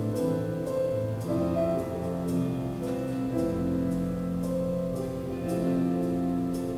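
Slow instrumental music led by piano, playing sustained chords that change about once a second.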